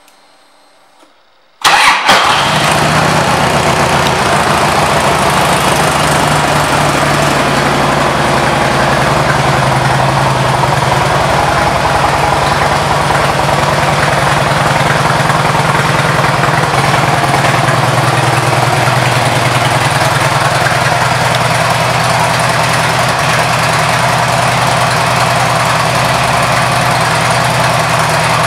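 Harley-Davidson Road King Classic's Twin Cam 88 V-twin, fitted with Screaming Eagle exhaust, firing up suddenly about two seconds in and settling into a steady idle.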